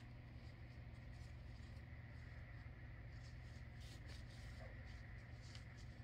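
Faint scratchy rustling of cotton yarn and a yarn needle being drawn through crochet stitches, a few light ticks in the middle, over a steady low hum.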